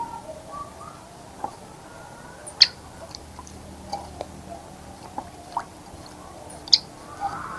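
Garden ambience of scattered short, faint bird chirps and chicken clucks, with two sharp ticks, one about two and a half seconds in and one near the end.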